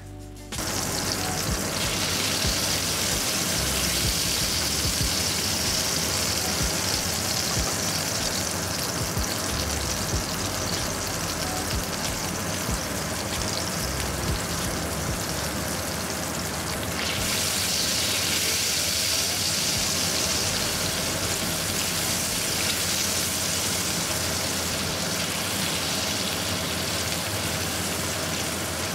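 Butter and minced garlic sizzling in a frying pan, a steady loud hiss that starts suddenly about half a second in.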